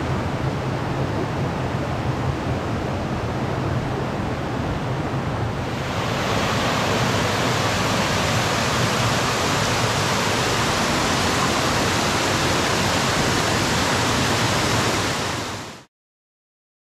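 Rushing river water making a steady hiss. About six seconds in it turns brighter and a little louder as a small waterfall cascading over a low weir is heard. It cuts off abruptly about a second before the end.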